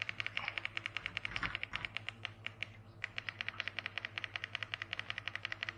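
Rapid, evenly spaced clicking from a GT Media V8 Finder satellite meter during menu setup, about ten clicks a second, with a short break about halfway through.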